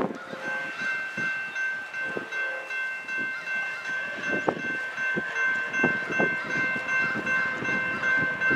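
Nathan P5 air horn of an approaching GE D9-40CW freight locomotive, heard from a distance, sounding one long steady chord from about half a second in. Irregular low thumps run underneath.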